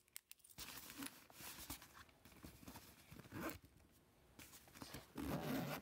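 Rustling and scuffing of a nylon camera bag and small items being handled and tucked into its pouches, with a few faint clicks at the start and a louder rustle near the end.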